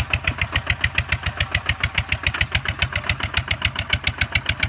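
Two-wheel walking tractor's single-cylinder diesel engine running under load as it pulls a plough through wet mud, with a steady, rapid chugging beat.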